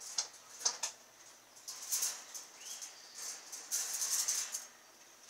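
Metal rods and wire-mesh panels of a wire chicken run rattling and clinking as they are handled on their cardboard packing. The sound comes in a few short bursts, busiest and loudest about four seconds in.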